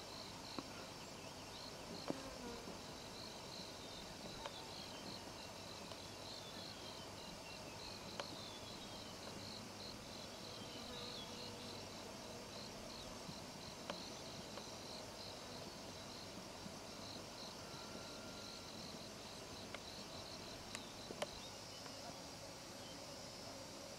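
Insects chirping faintly in a steady pulsing rhythm, with a few faint falling whistles and occasional sharp clicks.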